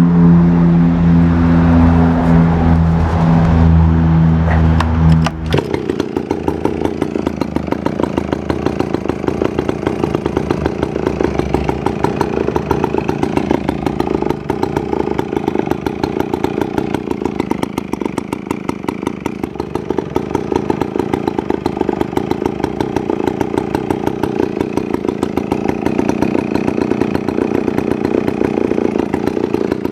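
Dolmar CA two-stroke chainsaw running at high revs for about five seconds, then dropping suddenly back to a steady, pulsing idle.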